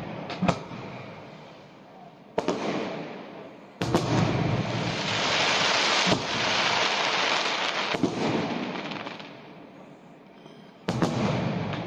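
Aerial fireworks bursting: about five booms with a couple of sharp pops near the start, and a long loud hiss between about four and nine seconds in.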